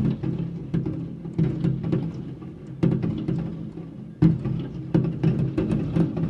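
Fireworks bursting in a rapid irregular series of bangs, a loud boom about once a second with smaller pops between, each followed by a low echoing rumble.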